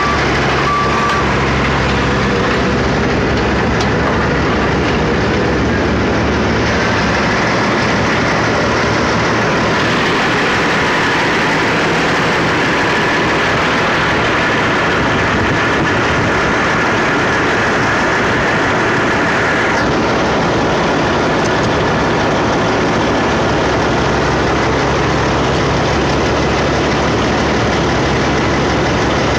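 Diesel engines of skid-steer loaders and semi trucks running loudly and steadily. A reversing beeper sounds for about the first second, and a high steady whine joins for a stretch in the middle.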